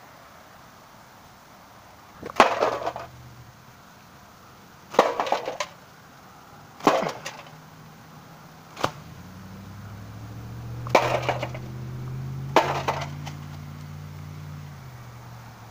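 A wooden stick hitting a box six times, about two seconds apart, each blow a sharp crack with a short crunching tail as the box breaks. In the second half a low droning hum swells up under the blows and fades near the end.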